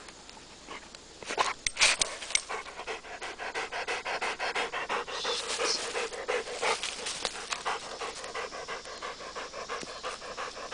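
Weimaraner panting rapidly, about four breaths a second, after running down an armadillo. A few sharp crackles about two seconds in are the loudest sounds.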